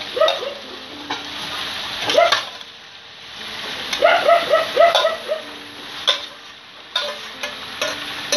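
Wild boar meat sizzling as it is tipped into a hot wok of frying greens, with a few sharp knocks on the wok. A dog yips in short quick runs of high calls near the start, about two seconds in, and again four to five seconds in.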